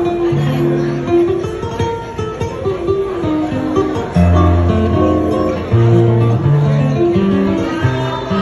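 Acoustic guitar playing a song's instrumental introduction: strummed chords and picked melody notes, with low bass notes coming in more strongly about four seconds in.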